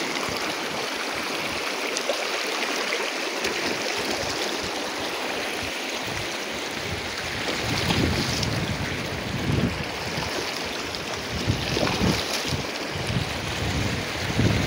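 A shallow mountain river rushing over rocks, a steady hiss of flowing water. From about halfway through, wind buffets the microphone in irregular gusts.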